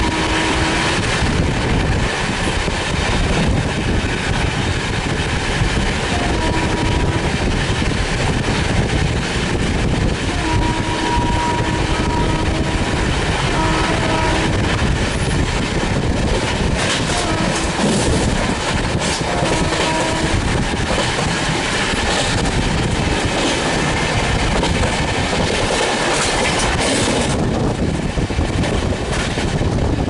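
Passenger train running at high speed, heard from aboard a coach: a steady loud rush of wheels, track and wind with clickety-clack. The hauling WAP7 electric locomotive's horn sounds repeatedly ahead, several short honks and one held longer about ten seconds in.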